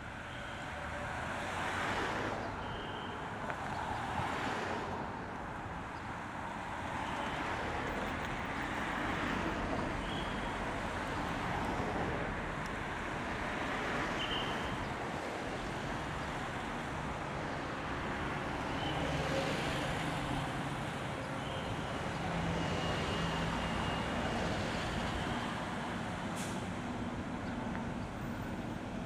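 Brissonneau et Lotz D-7142 diesel locomotive running as it slowly approaches, pulling loaded hopper cars. Short high-pitched squeals come now and then.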